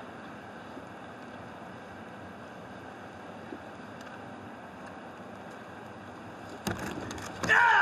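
Steady hiss of a large hall's room tone. Near the end come a few sharp slaps, then a loud shout, a karate kiai, as the paired demonstration begins.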